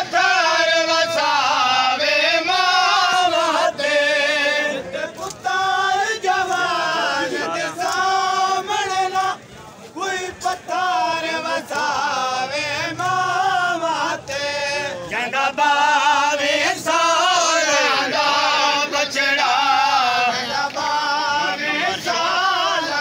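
A group of men singing a Punjabi/Saraiki wainr, a mourning lament, together in one melody, with a brief break about ten seconds in.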